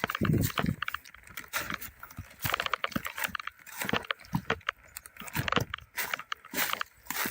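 Footsteps crunching through dry leaves and brush: an irregular run of crunches and small snaps, with a dull thump just after the start.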